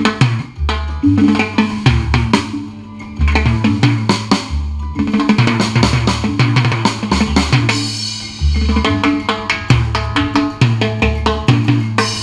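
Timbales and a mounted block played in a live band over a bass line and other instruments, with quick strokes throughout and a cymbal crash about eight seconds in.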